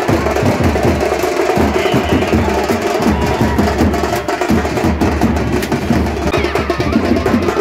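Festival procession drumming: loud hand-beaten drums and percussion in a fast, steady rhythm, with crowd noise underneath.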